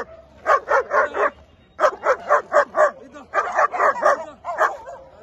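Long-haired German Shepherd in a basket muzzle barking in quick runs of four to six barks, three runs with short pauses between them.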